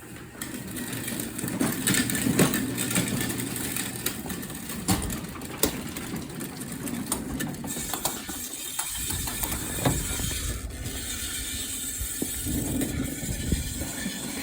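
Garage door opener running: a steady mechanical rattle and clatter of the drive and the door sections, with frequent sharp clicks and knocks, starting about half a second in.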